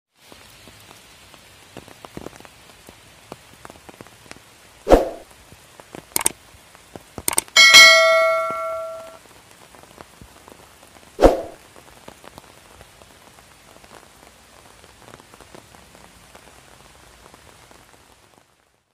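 Subscribe-button animation sound effects: a few sharp mouse clicks and one bright bell ding that rings out and fades over about a second and a half. A faint steady hiss with light ticking lies underneath.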